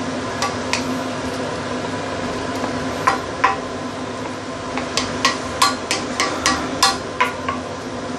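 Wooden spatula stirring chicken and shiitake mushrooms in broth in a stainless steel wok, knocking against the pan: two knocks about three seconds in, then a quick run of about ten from about five seconds on. Under it a steady hiss and low hum.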